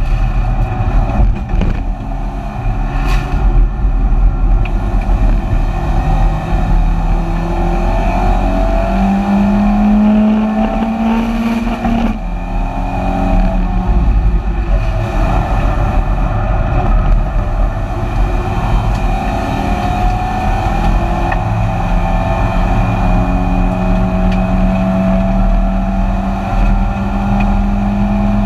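Four-cylinder engine of a BMW 318ti Compact race car heard from inside its stripped, roll-caged cabin, running hard at racing speed with road and wind noise. The revs climb and fall with the gear changes, with one clear upshift about twelve seconds in.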